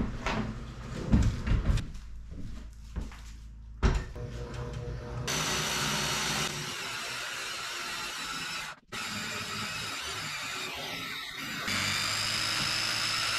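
Clunks and knocks as folding aluminium work platforms are set up. About five seconds in, a handheld circular saw starts and runs steadily, cutting through a pine board, with two brief breaks in the sound.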